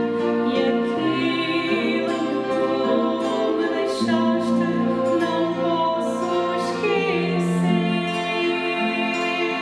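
Fado song sung by a woman's voice, accompanied by two nylon-string classical guitars and two violins playing long bowed notes.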